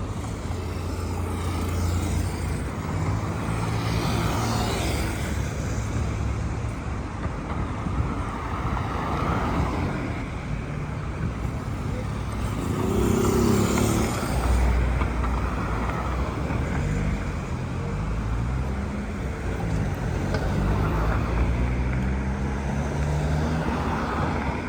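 Busy city-avenue traffic: cars and heavier vehicles passing one after another with engine hum and tyre noise. One engine revs up, rising in pitch, in the second half.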